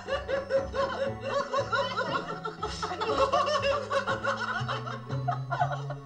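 Several women laughing together, with background music underneath.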